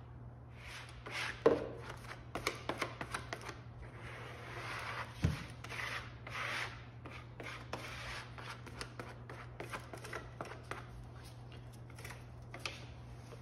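A plastic spreader scraping and rubbing wet wood glue across thin white oak laminating strips, with scattered clicks and light knocks as the strips are handled, and one sharp knock about a second and a half in. A steady low hum runs underneath.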